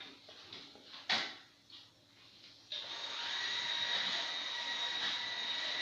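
A single sharp click about a second in. Nearly three seconds in, a steady high whine from a small motor starts abruptly and keeps running.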